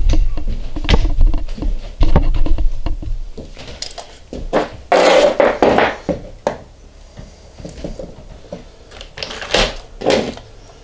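Metal pipe fittings clinking and knocking on a wooden workbench as they are handled and sorted, with two louder noisy bursts about five and nine and a half seconds in.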